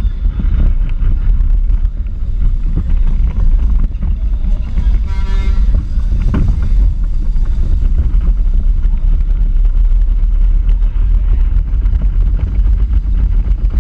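Onboard sound of a small home-built electric power-racing kart driving on asphalt: a steady rumble of the wheels and chassis, with wind buffeting the microphone. A short pitched tone sounds over it about five seconds in.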